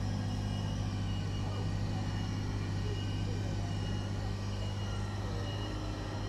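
Takeuchi TB216 mini digger's small diesel engine running steadily with a low, even hum.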